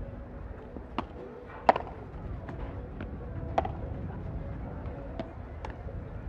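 Padel rally: a padel ball struck back and forth by rackets and bouncing, seven sharp pops at uneven spacing, the loudest a little under two seconds in, over steady low background noise.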